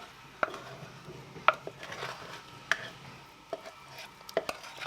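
A utensil scraping and knocking against a mixing bowl as cake batter is scooped out into a baking pan: about six sharp, irregular clinks over a soft scraping.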